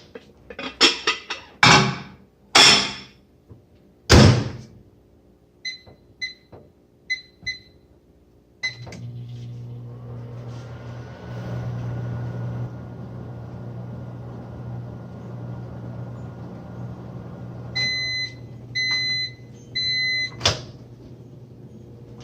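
Microwave oven in use. A few knocks and clicks come first, then four short keypad beeps. The oven then runs with a steady low hum and fan noise for about twelve seconds, gives three longer end-of-cycle beeps, and a door-latch click follows.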